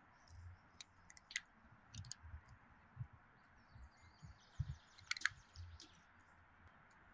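A cat crunching dry kibble: irregular soft crunches and sharp clicks as it chews the pellets, with faint bird chirps in the background.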